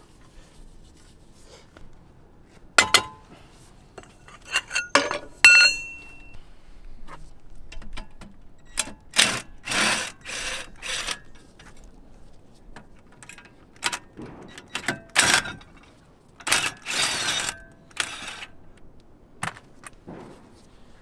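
Steel hand tools and brake parts clinking and knocking: a socket and breaker bar working the lower caliper bracket bolt and the heavy bracket being handled. Scattered sharp metal clinks, one ringing briefly about five seconds in, then several short bursts of rattling and scraping.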